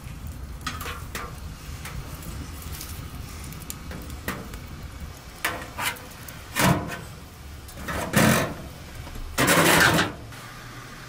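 Wood fire burning in a sheet-metal stove with a low rumble and faint crackle. Loud metal clanks and scrapes follow as a metal poker is worked in the firebox. A longer scrape comes near the end as the stove's metal door is swung shut, after which the fire's rumble is muffled.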